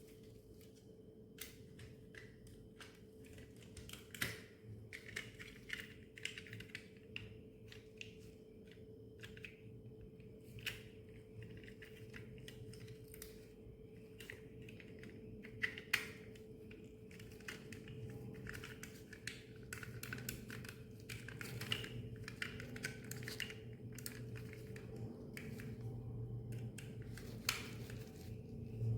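Small plastic parts and screws of a toy bulldozer clicking, tapping and scraping irregularly as it is handled by hand, over a steady faint hum.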